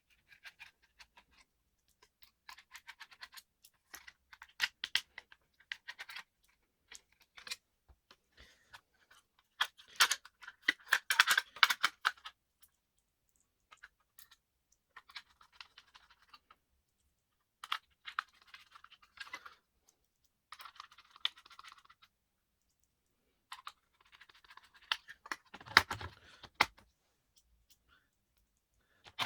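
Irregular clicking and scratching as a laptop is handled, its plastic case or keys tapped and rubbed, in scattered bursts with pauses between them. A louder knock comes near the end.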